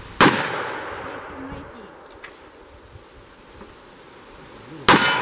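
Two shots from a .44 Magnum revolver loaded with hot .44 ammunition, one just after the start and one near the end, nearly five seconds apart. Each is a sharp crack followed by a long echo that dies away.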